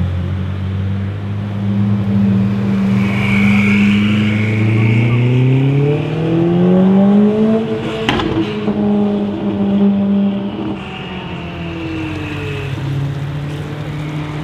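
Twin-turbo V8 supercar engines at low speed on a street. One engine revs up, its pitch climbing for several seconds, then a sharp exhaust pop sounds about eight seconds in as the Ferrari 488 Pista's Novitec exhaust spits blue flames, and the revs fall away. A high squeal comes and goes twice.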